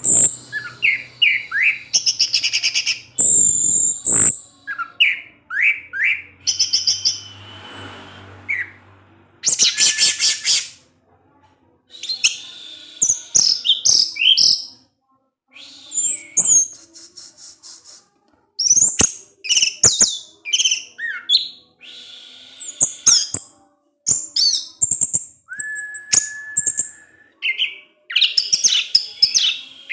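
Orange-headed thrush singing a varied song of quick chirps, whistled glides and rattling trills, in short phrases broken by brief pauses.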